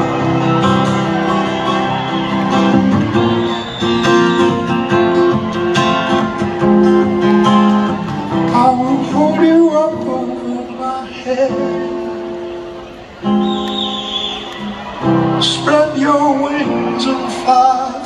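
A solo acoustic guitar played live through a concert sound system, picking and strumming a slow tune, with brief snatches of a man singing over it.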